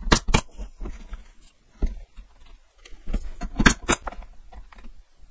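A brad nailer firing twice in quick succession, driving brads into the wooden pieces of a jig. Lighter knocks of wood being handled follow, then a second pair of sharp clicks about three and a half seconds in.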